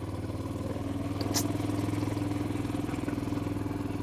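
Motorcycle engine running steadily at low riding speed, with one short sharp click about a second and a half in.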